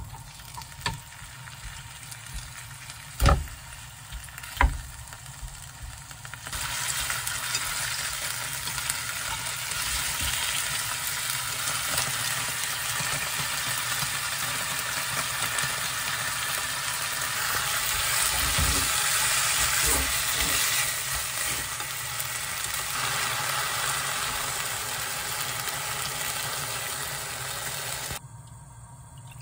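Beef and seaweed sizzling in sesame oil in a non-stick pan, stir-fried with a wooden spatula. Two sharp knocks come in the first few seconds. The sizzle rises loud about six seconds in and cuts off suddenly near the end.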